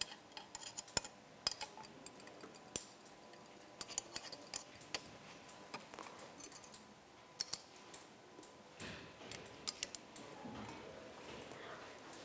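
Small hooked weights clicking and clinking against the hooks of a lever beam as they are picked up from the table and hung on either side to balance it. A scattered string of light, sharp clicks.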